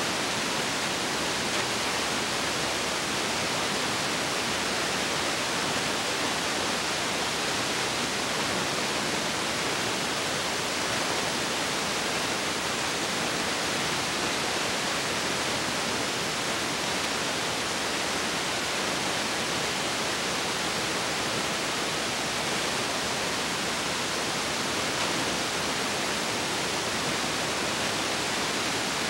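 Steady, even hiss with nothing else in it: recording or transfer noise on the soundtrack of a silent home-movie film.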